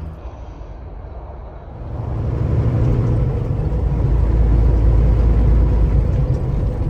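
Semi truck driving on the highway: a steady low engine and road rumble that swells about two seconds in and then holds.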